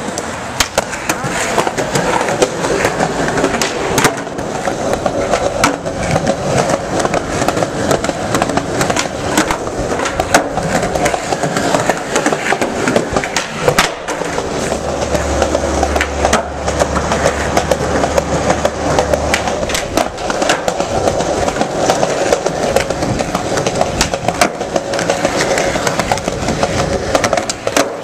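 Skateboard wheels rolling over concrete, broken by many sharp clacks of boards popping, striking and landing. A low hum joins for a few seconds in the middle.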